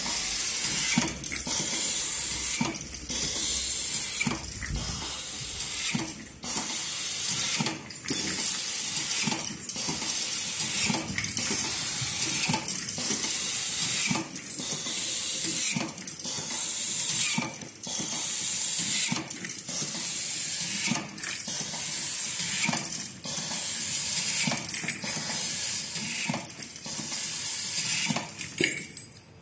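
Automatic screw-fastening machine with an electric screwdriver driving screws into padlocks one after another: a high whir and hiss, broken by clicks, repeating about once every second and a half. It cuts off suddenly near the end.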